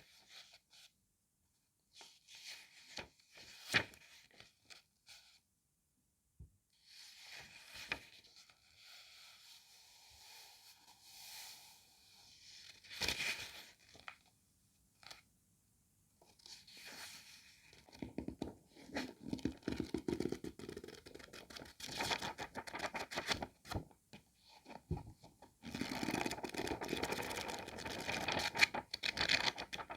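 Paper pages of an old book of fairy tales being leafed through and handled, rustling and scraping in irregular strokes. There are a few short silences, and the scraping grows denser over the second half.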